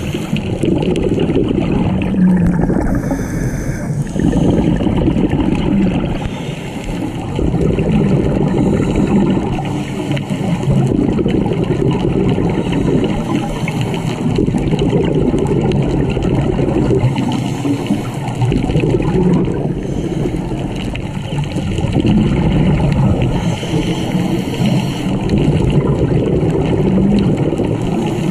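Underwater sound picked up by a diver's camera: a scuba diver's breathing, with exhaled bubbles gurgling from the regulator in surges that swell and ease every few seconds.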